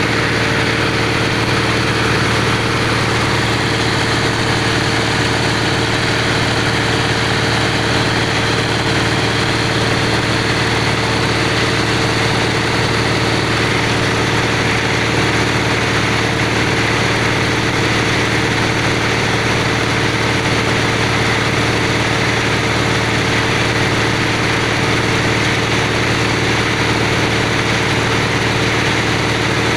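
Engine of a bore-well drilling machine running steadily at a constant speed.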